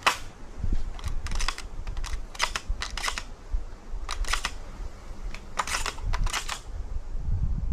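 A shotgun's action being worked by hand to clear a malfunction: a series of sharp metallic clicks and clacks, several in quick pairs, over a low rumble.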